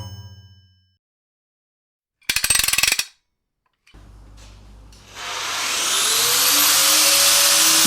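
A short, rapid ratcheting rattle, then a power tool spinning up with a rising whine and settling into a steady run, as used for rust removal.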